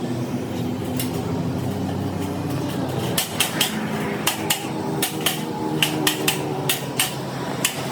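Hammer striking metal repeatedly with an irregular beat, each blow ringing briefly; the blows come faster after about three seconds. A steady machine hum runs underneath.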